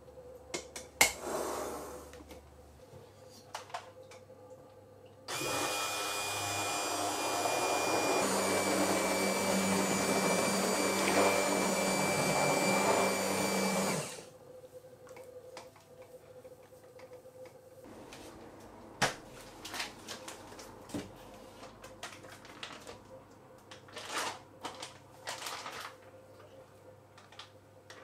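Immersion (stick) blender running in a pot of pork bone broth for about nine seconds. It starts suddenly, its motor whine shifts in pitch partway through, and it cuts off abruptly. Light knocks and clinks come before and after it.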